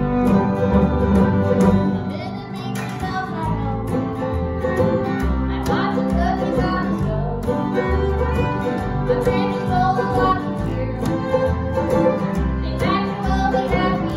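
Bluegrass-style string band playing with a string orchestra: fiddle, strummed acoustic guitar and mandolin over upright bass notes that change every second or so, with the orchestra's violins and cellos holding chords underneath.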